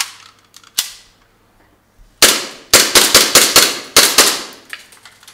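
Gold WE Luger P08 gas blowback airsoft pistol: two sharp clicks as it is handled, then a quick string of about nine loud shots over about two seconds, each a sharp crack with a short decaying tail.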